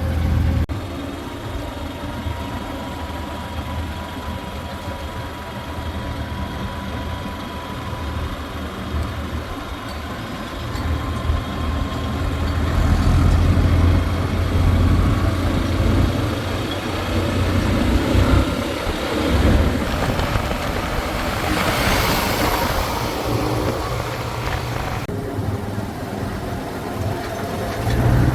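Diesel engines of heavy farm and construction machinery running, with a steady low rumble that grows louder about halfway through. A brief hissing rush comes near the end.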